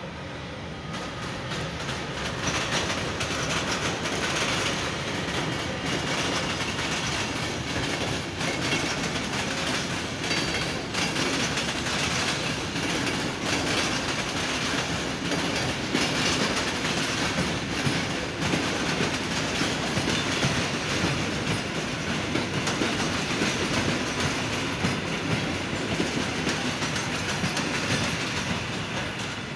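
Passenger train rolling past at close range, its wheels clacking over the rail joints with a steady rumble. The noise swells about two seconds in and eases off near the end.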